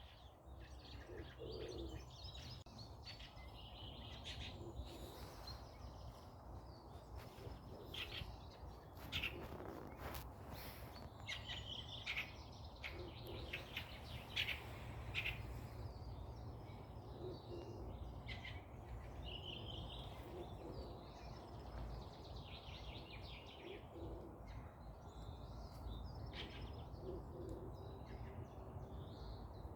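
Forest birds chirping and calling on and off, over a steady low background rumble.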